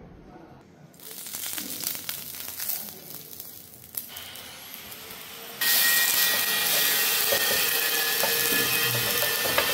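Oil and food sizzling on a hot ridged grill pan: a quieter fizz from about a second in as the pan is brushed with oil, then a sudden jump to loud, steady sizzling a little past halfway as halved tomatoes go onto the pan.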